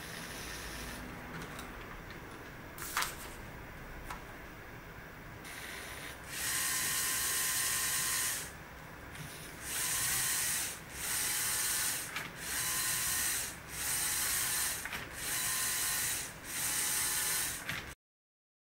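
LEGO SPIKE Prime motors and plastic Technic gears whirring as the drawing machine runs: softer at first with a sharp click about three seconds in, then louder in regular bursts about every second and a half with short pauses between them as the pen strokes are laid down. The sound cuts off suddenly near the end.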